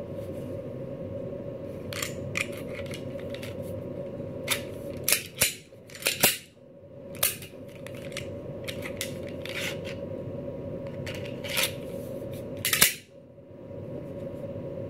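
Unloaded Smith & Wesson SD40 VE pistol worked by hand: slide, trigger and a newly replaced takedown lever give a series of irregular sharp metallic clicks and snaps, the loudest about six seconds in and near the end.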